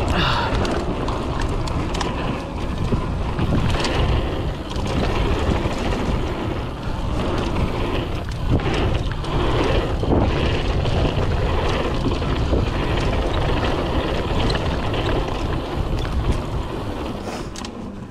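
Wind rushing over a GoPro microphone on a fast mountain-bike descent, mixed with the bike's tyres and frame rattling over rough dirt trail, and a few sharper knocks from the terrain.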